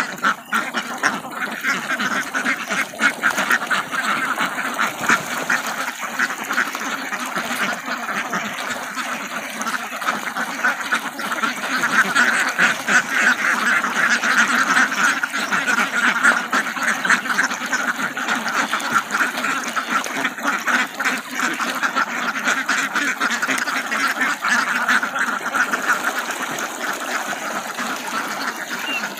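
A large flock of domestic ducks quacking in a dense, overlapping chorus without a break as they crowd round to feed.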